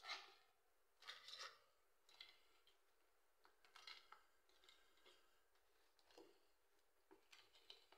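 Faint, intermittent scrapes and clinks of a metal utensil against the inner pot of an electric rice cooker as cooked crabs and shrimp are scooped out onto a tray, with short quiet gaps between scoops.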